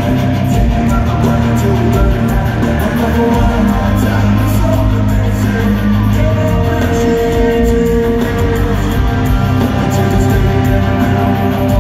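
A rock band playing loud through an arena PA, with electric guitars and a drum kit, recorded from the crowd.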